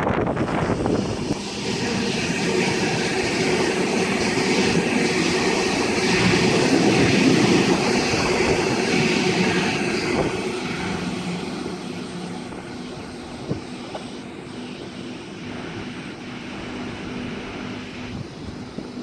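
A large vehicle passing by: a loud steady rushing that peaks about seven seconds in, then slowly fades, leaving a faint hum near the end.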